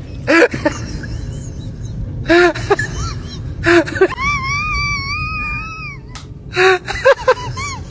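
Exaggerated comic crying: short whimpering sobs, then one long, high, wavering wail lasting about two seconds, then more sobbing.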